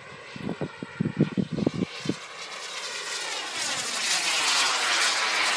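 Turbine engine of an RC model jet flying past overhead: a rushing whine that grows louder from about halfway through, with a sweeping, phasing sound as it passes. A run of low thuds in the first two seconds.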